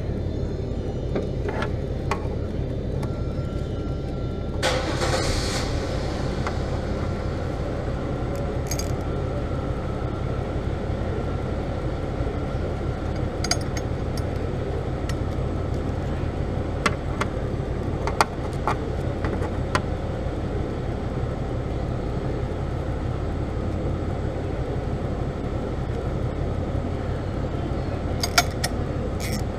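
Ford Fiesta engine running steadily at idle, with a few scattered light clicks and a short rustling burst about five seconds in.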